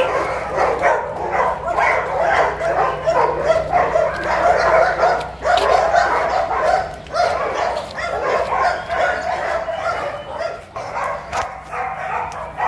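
Dogs barking, several at once and overlapping, without a break.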